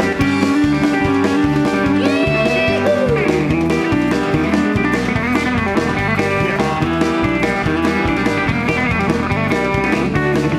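Live country band playing an instrumental break with no singing: electric guitar lead over a bass line and a steady drum beat, with a note bent up and back down about two seconds in.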